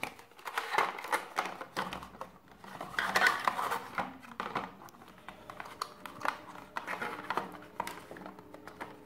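Plastic packaging tray rustling and clicking as a neckband Bluetooth earphone and its cable are lifted out and handled, loudest about three seconds in.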